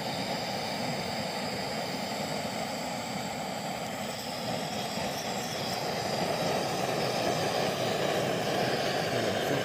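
Burner of a portable gas-cylinder stove burning with a steady rushing sound under a pot of tea, growing a little louder about halfway through.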